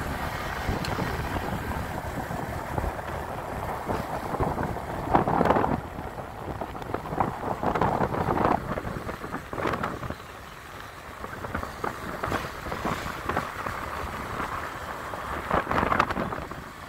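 Wind rushing over the microphone of a moving motor scooter, with road and engine rumble underneath. The wind swells louder about five seconds in and again near the end.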